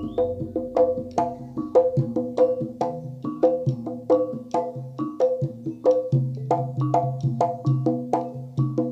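Live Jaranan gamelan music: fast, evenly spaced strikes on pitched percussion that ring briefly, over low sustained tones and drum hits.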